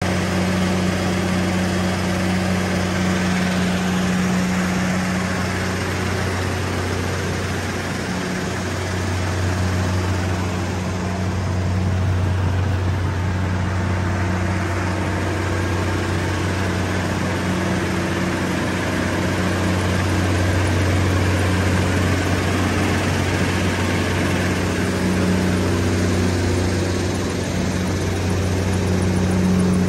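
Diesel engine of a Terex Pegson Maxtrak 1000 tracked cone crusher running at a steady speed: a deep, even hum over constant mechanical noise, growing a little louder and softer at times.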